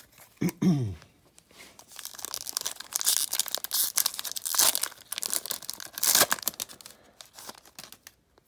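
A foil trading-card pack wrapper being torn open and crinkled, crackling densely for several seconds. A short low falling sound comes just before it, about half a second in.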